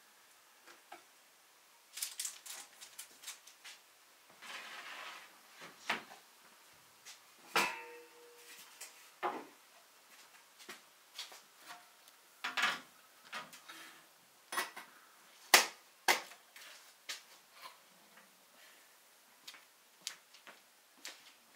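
Scattered clinks, taps and knocks of dishes and utensils being handled in a kitchen, at irregular intervals; one clink about seven and a half seconds in rings briefly.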